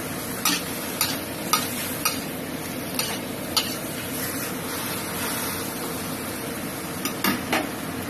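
Pechay and mushrooms sizzling steadily in a stainless steel wok as a metal spatula stirs them. The spatula clanks against the pan about twice a second at first, stops in the middle, and clanks three more times near the end.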